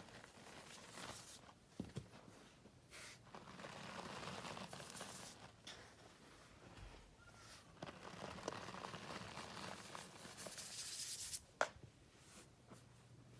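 Hands squeezing, crumbling and sifting powdered scouring cleanser (Ajax and Comet) in a plastic tub: soft, faint crunching and rustling of the powder in swells, with one sharp tick near the end.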